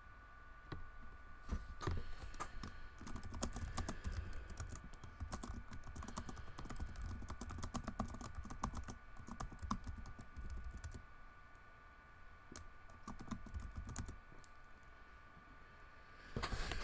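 Typing on a computer keyboard: a long run of quick, irregular key clicks, thinning out about eleven seconds in to a few scattered clicks, over a faint steady high hum.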